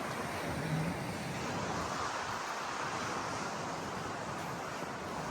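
Sea surf washing on the shore, mixed with wind on the microphone, as a steady rushing noise that swells a little two to three seconds in.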